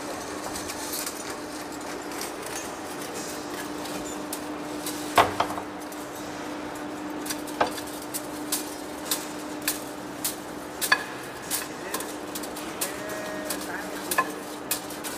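Heavy-duty lathe turning a large steel cylinder: a steady machine hum under the cut, with one loud metallic knock about a third of the way in, then sharp metallic clicks at an even pace of about two a second.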